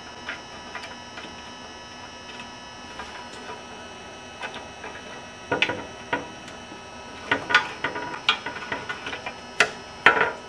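Metal clamp being set and tightened on steel plate and angle: scattered sharp metallic clicks and taps that start about five and a half seconds in and are loudest near the end, over a steady hum.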